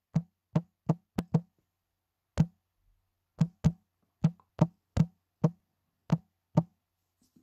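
A series of about fifteen short key-press clicks from a smartphone's on-screen keyboard as an email address is typed, coming in irregular bursts, some quick pairs and some single presses with short pauses between.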